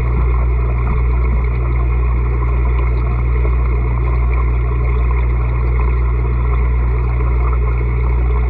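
Steady, unchanging low machine hum with a constant rushing noise over it.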